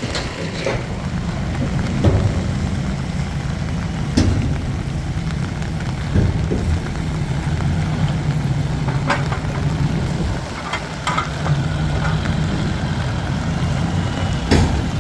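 Diesel engine of a Nippon Sharyo DH408-95M pile driver running steadily, with a few scattered sharp knocks and clicks.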